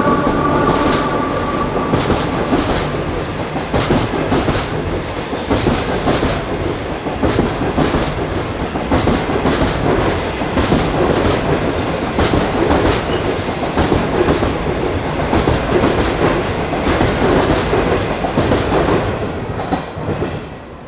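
Passenger coaches of a non-stop train running through the station at speed: a loud rush of wheel and rail noise with repeated clickety-clack as the wheels cross rail joints. A high whine from the SS8 electric locomotive that has just passed fades out in the first two seconds. The noise drops away suddenly near the end as the last coach clears.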